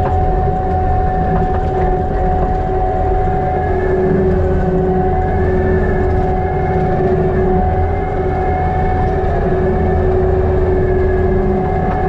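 Kubota SVL95-2s compact track loader's four-cylinder turbo diesel engine running steadily while the machine drives, heard loud from inside the cab, with a steady whine over the engine note.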